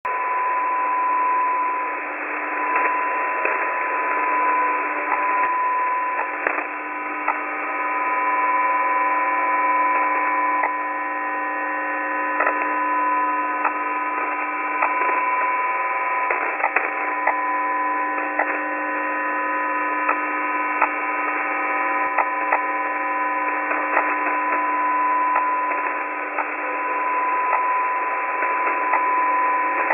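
Shortwave radio signal on the G06 numbers-station frequency before a transmission: a steady hum of several tones with many irregular Windows XP-style clicks coming through on the carrier. The uploader takes the clicks for the station operator typing the message on the computer. The sound is narrow, thin receiver audio.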